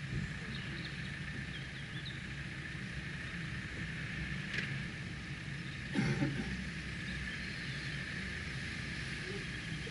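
Subaru Forester's flat-four engine idling steadily while the car stands still, with birds chirping briefly and a single knock about six seconds in.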